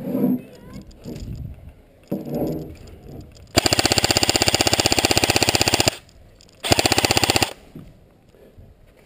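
Airsoft rifle firing on full auto: a long burst of about two seconds of rapid, evenly spaced shots, then a shorter burst of under a second after a brief pause.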